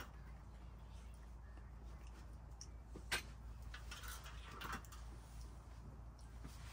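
Quiet low hum with a few faint, sharp clicks of forks and cutlery against plates during a meal, the clearest about three seconds in.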